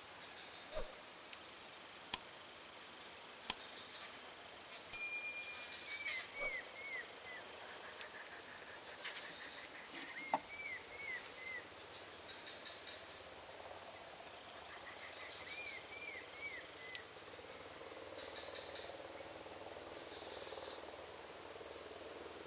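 Steady high-pitched buzzing of insects, unbroken throughout. A short run of four or five quick chirping notes recurs every few seconds, with a few light clicks.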